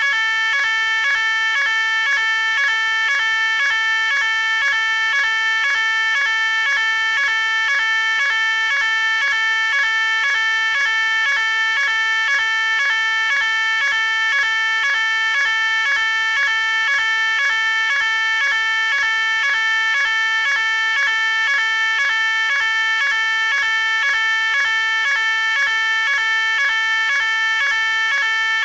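Fire alarm sounding continuously: a loud electronic alarm tone pulsing on and off at an even, rapid rhythm, without a break.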